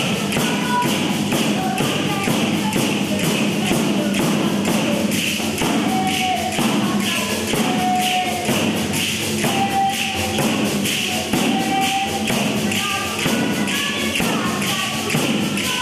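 Folk dance music driven by large jingled frame drums (tamburelli) beaten in a fast, even rhythm, their jingles rattling on every stroke, with a melody of short held notes above.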